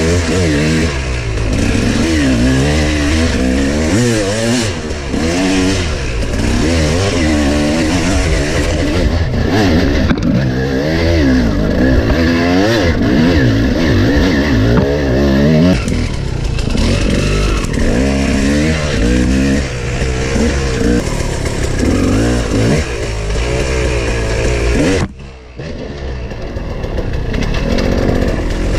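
KTM 300 two-stroke dirt bike engine, heard from on the bike, revving up and down again and again under the rider's throttle. About 25 seconds in it drops away briefly, then picks up again.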